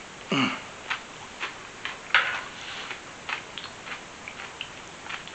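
Someone chewing a mouthful of fresh salad with raw cucumber and radish, giving a string of short, crisp crunches at uneven spacing, about two a second.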